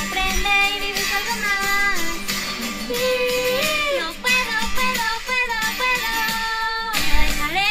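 A woman singing a song in Spanish over a backing track, with long held notes.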